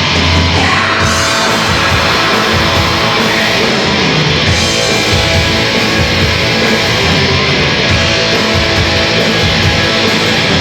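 Live heavy metal band playing: loud distorted guitars over bass and drums with a steady low beat.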